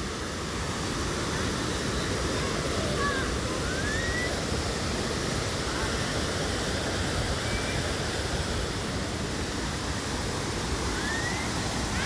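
Waterfall pouring into its plunge pool: a steady rush of falling water. A few faint, short, rising whistle-like sounds sit over it.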